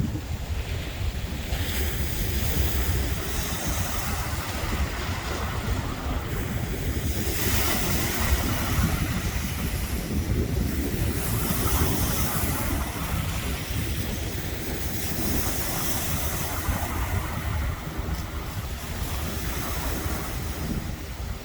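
Wind buffeting the microphone with a low rumble, over a steady wash of sea waves that swells and fades.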